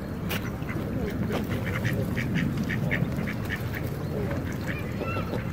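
Birds calling: a quick run of short calls, several a second, from about one second in to nearly four seconds, then a few curved calls near the end, over a steady low background noise.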